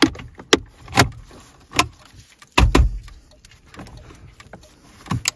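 Half a dozen or so sharp, irregular clicks and knocks as the refitted dashboard air vents and their buttons are worked by hand, checking that they operate.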